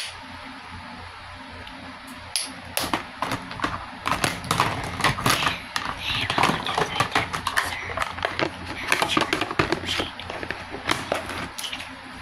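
Rapid irregular clicks and taps from handling a plastic skincare lotion bottle and its cap.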